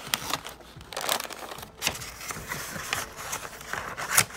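Tissue-paper wrapping crinkling and rustling as it is pulled back by hand, with many small crackles and one louder crackle near the end.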